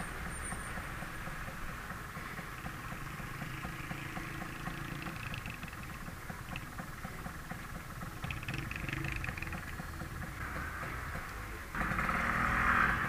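Kawasaki Brutus 140 two-stroke single running at low road speed under way, heard from the bike with road and wind noise. It gets suddenly louder about a second before the end.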